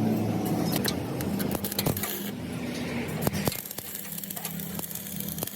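Metalworking workshop sounds: a steady machine hum that fades and returns, with scattered sharp metallic clinks and knocks of steel parts being handled.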